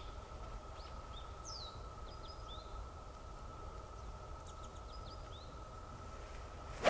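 Faint outdoor ambience with scattered bird chirps and a steady high tone, then near the end one sharp crack of a golf club striking the ball.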